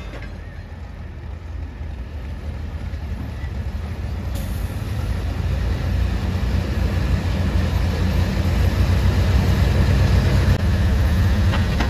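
John Deere 4255 pulling tractor's diesel engine running deep and low while hooked to the pulling sled, growing steadily louder over several seconds.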